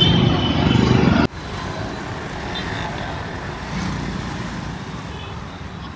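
Road traffic noise: a steady rumble of passing vehicles that drops abruptly to a quieter, even hiss about a second in.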